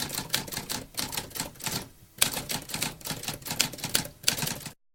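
Typewriter keys being struck in quick succession, with a short pause about two seconds in before the typing resumes. It stops abruptly near the end.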